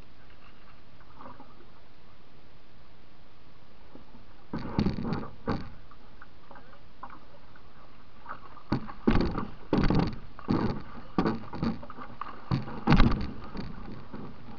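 Canoe on moving river water: a steady hiss, with irregular clusters of knocks and splashes from the canoe. The first cluster comes about four and a half seconds in, and they come thicker from about nine seconds on. The knocks come through the hull to a camera mounted on the bow.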